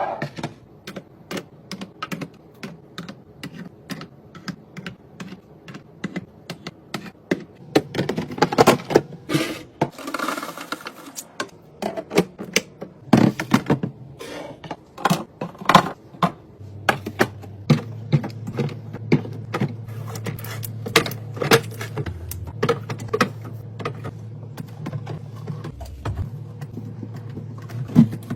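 Quick clicks, taps and clatter of groceries, jars and plastic containers being handled and set down. A low steady hum joins a little past halfway.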